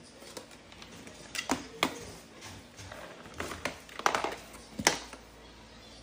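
Roanow cordless stick vacuum parts handled and fitted together: about six sharp clicks and knocks over three or four seconds as the extension wand is joined to the handheld unit, with the motor not running.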